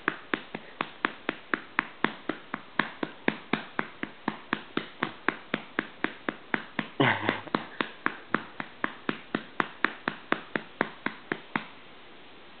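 A hand patting a baby's back to bring up a burp: quick, even pats, about four a second, that stop near the end. About seven seconds in, a short low sound breaks in among the pats.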